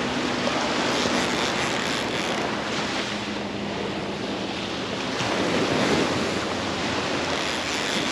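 Gulf surf washing onto the beach, with wind buffeting the microphone; a wave surges louder about five seconds in.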